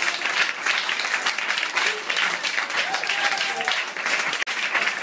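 Audience applauding steadily, with a few voices calling out about three seconds in; the sound briefly drops out near the end.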